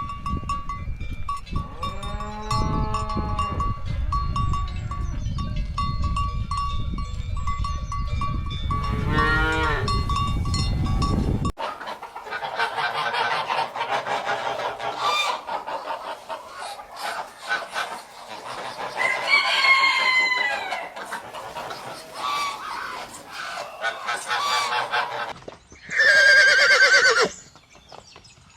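Farm animal calls: cattle and poultry. In the first part a few pitched calls rise over a steady low rumble. After an abrupt change about twelve seconds in come many shorter bird calls, with one loud call near the end.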